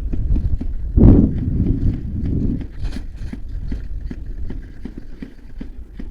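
Footsteps of a person running or jogging: a steady rhythm of footfalls, with a louder bump about a second in.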